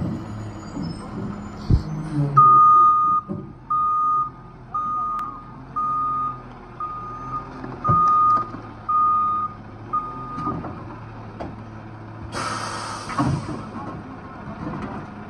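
Loadmaster rear-loader garbage truck backing up: its reverse alarm beeps eight times, about once a second, over the steady running of the diesel engine. About twelve seconds in comes a short burst of hissing air, the air brakes setting as the truck stops.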